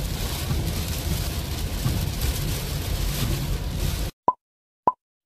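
Heavy rain on a moving car and road rumble heard from inside the cabin, steady for about four seconds. The sound then cuts out, and three short, high blips follow about half a second apart, an added sound effect.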